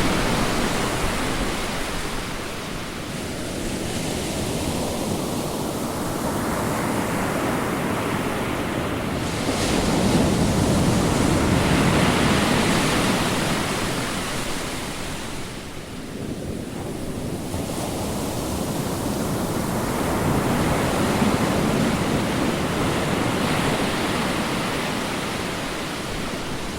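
Ocean waves breaking and washing on the shore in a steady hiss that swells and ebbs as each wave comes in, with a lull about two thirds of the way through.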